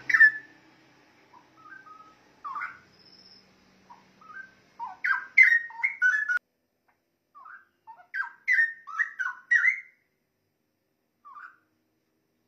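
Straw-headed bulbul (cucak rowo) singing: rich, liquid whistled phrases of quick gliding notes, coming in bursts with short pauses between. The fullest bursts fall in the middle and latter half.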